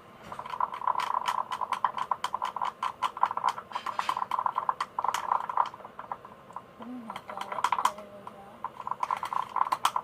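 Slime being stirred with a pencil in a small bowl: rapid, uneven clicking and tapping, pausing briefly twice in the second half.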